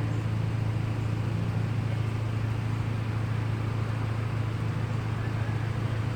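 A steady low hum over a constant background of noise.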